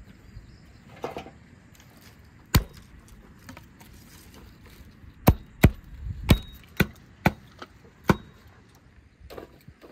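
Hatchet chopping thin branches into short sticks on a wooden chopping block: sharp single chops, a few spaced well apart, then a quicker run of about six in the second half.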